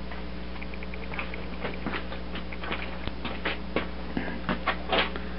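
Steady low electrical hum under a run of irregular light clicks and taps, a quick string of small ticks about half a second in and the strongest taps near the end.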